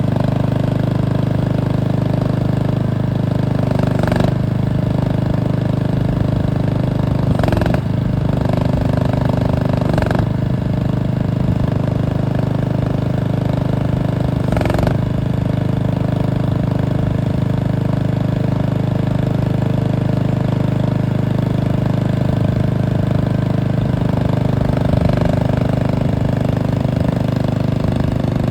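A mini skid steer loader's 15 hp Rato gasoline engine running steadily, with a few short knocks from the machine along the way.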